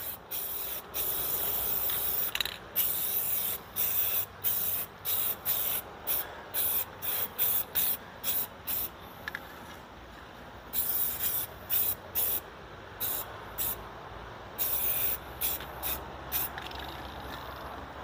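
Aerosol spray-paint can sprayed in a rapid series of short hissing bursts, a few held longer, with a short pause about halfway through.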